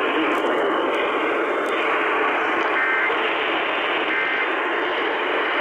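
Steady static hiss from a weakly received radio broadcast, thin and muffled. Two faint short double tones come through the hiss about a second and a half apart.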